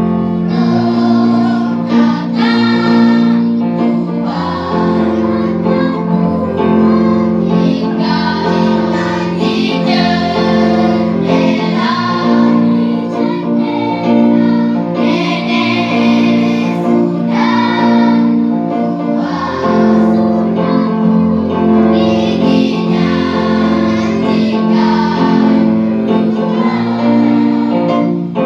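A children's song, with singing voices over a keyboard backing and a steady bass line.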